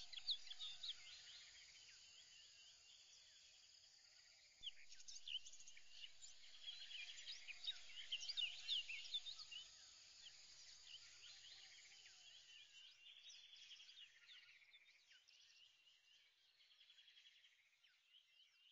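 Faint birdsong: many birds chirping and trilling over one another, growing louder a few seconds in and fading out near the end.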